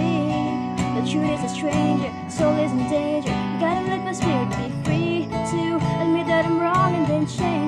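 A woman singing a slow pop ballad to her own strummed acoustic guitar, the strums falling steadily under the sung melody.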